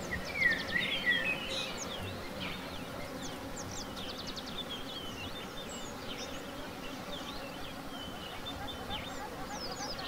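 Honeybees humming steadily around an opened hive, with small birds chirping and twittering throughout, loudest in the first second or so.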